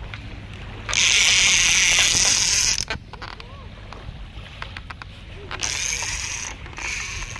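A conventional surf-casting reel's ratchet clicker buzzing as a hooked fish strips line off it. There is a loud continuous run starting about a second in and lasting nearly two seconds, then two shorter, weaker runs near the end.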